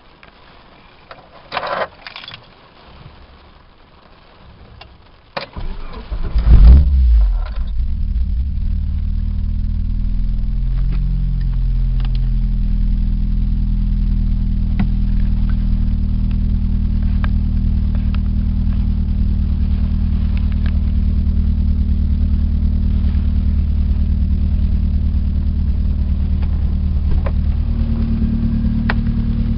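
A couple of clicks, then the VAZ-2112 engine is cranked and catches about six seconds in, settling into a steady idle. The owner reports a knock from the cylinder head that grows as the engine warms while the oil pressure drops, and that is not cured by new hydraulic lifters, oil and filter.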